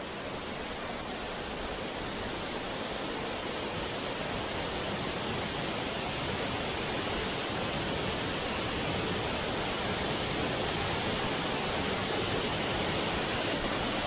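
Waterfall and the stream running over rock slabs toward its drop: a steady rush of water that grows slightly louder.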